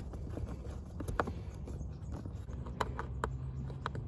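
A few light clicks and taps from a screwdriver and the plastic cabin air filter housing as its T20 bolts are screwed back in, one about a second in and a cluster near the end.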